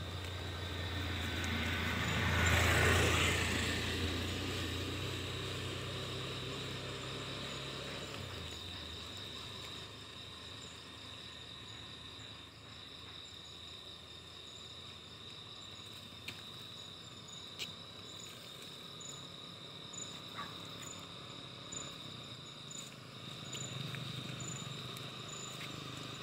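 Insects trilling steadily on one high note, with a second, higher insect call pulsing regularly. In the first several seconds a passing vehicle swells up and fades away, and a few faint clicks come later.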